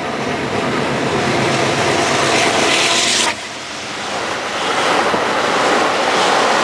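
NJ Transit ACES passenger train running beneath an overpass: a steady rush of the cars going by. The noise drops suddenly a little over three seconds in, then builds again.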